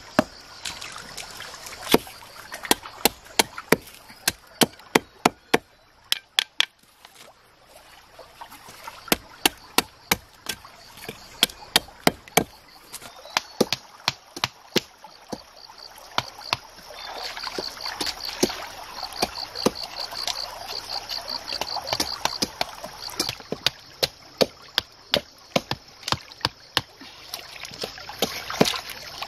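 Repeated sharp knocks of a stone pounding bamboo stakes into a stream bed, irregular at one to three blows a second, over shallow stream water running.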